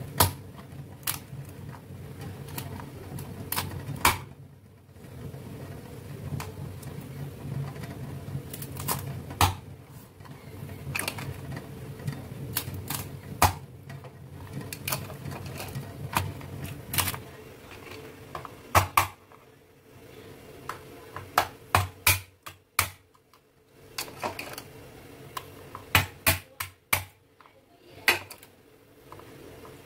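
Cleaver chopping raw crab into pieces on a wooden cutting board: sharp, irregular knocks, a few at a time, coming in quicker clusters near the end. A low hum sits underneath for the first half.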